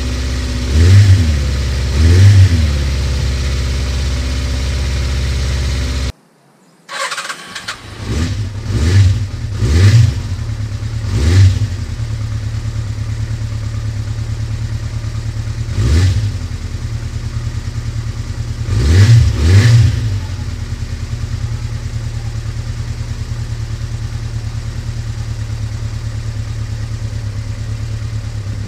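Suzuki GS250FW's freshly restored 250 cc inline-four running on its first start after the rebuild, revved in short sharp blips of the throttle. The sound cuts out for about a second some six seconds in. The engine comes back unevenly, takes several more blips, and settles into a steady idle for the last several seconds.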